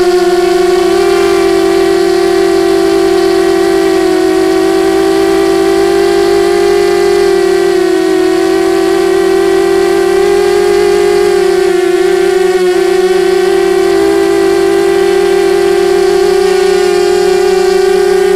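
FPV 250 quadcopter's DYS 1806 2300KV brushless motors and propellers whining steadily at flying speed, the pitch wavering a little with throttle and dipping briefly about two-thirds through. Loud and close, as from the Mobius camera on the quad.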